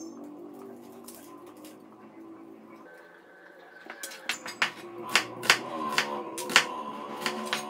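Kitchen knife cutting on a plastic cutting board: a run of sharp, uneven taps, about two to three a second, starting about four seconds in.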